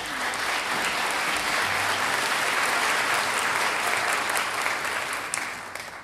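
Audience applauding, fading away near the end.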